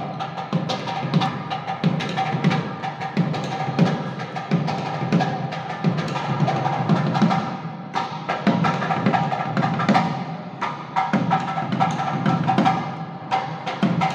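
Music with a steady drum beat and percussion strikes over sustained held tones.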